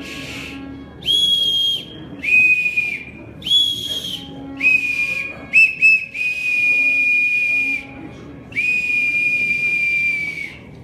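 A small whistle blown in a string of breathy notes that alternate between a higher and a lower pitch. Two quick short toots come about halfway, then two long held notes near the end. Each note sags slightly in pitch as it stops.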